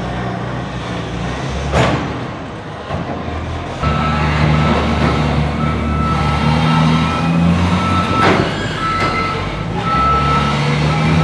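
Linde reach stacker's diesel engine running under load while it lifts and carries a shipping container. From about four seconds in, its reversing alarm beeps about once a second. Two brief sharp noises come through, one near the start and one past the middle.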